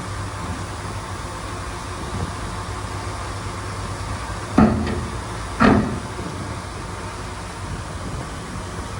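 Diesel engine of heavy earthmoving machinery running steadily, with two loud bangs about a second apart near the middle.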